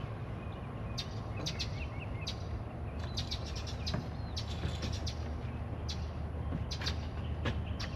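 Small birds chirping over a steady low rumble, with a scatter of short sharp clicks and rustles through it.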